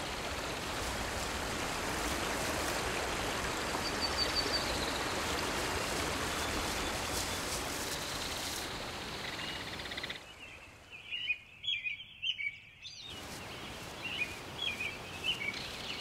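Outdoor forest ambience: a steady rushing background noise with faint small-bird chirps. About ten seconds in, the rushing noise cuts off and high, short bird chirps are heard clearly, repeating to the end over a quieter background.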